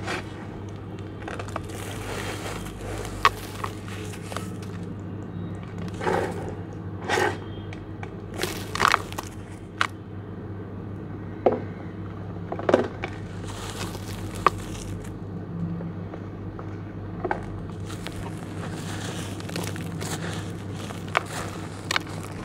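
Hands crushing and crumbling a mix of wet charcoal mud and dry sand with small white stones in a plastic basin: scattered sharp clicks and short gritty crunches, thickening into a steady crumbling hiss near the end. A steady low hum runs underneath.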